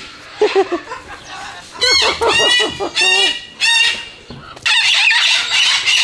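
Parrots calling: a series of short, loud, repeated calls starting about two seconds in, then harsh screeching from about five seconds in.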